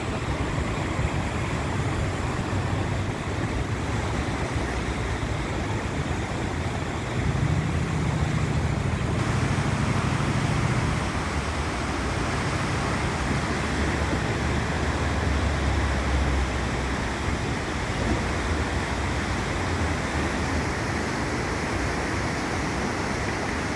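Fast, muddy floodwater rushing and churning in a concrete-lined channel: a steady, even roar of turbulent water. A deeper rumble swells twice, in the middle and again a little later.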